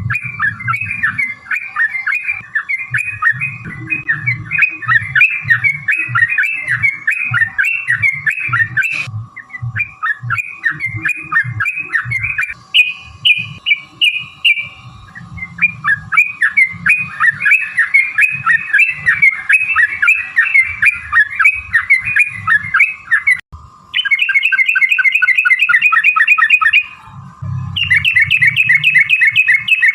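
Yellow-vented bulbuls (trucukan) singing in long, rapid chattering runs of repeated notes, as in a song duel between rival birds. The runs break off briefly twice, and in the last few seconds the notes come very fast and evenly.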